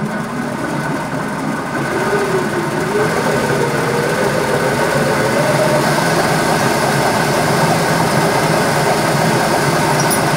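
Metal lathe switched on and running up to speed, its whine rising in pitch over the first few seconds, then running steadily.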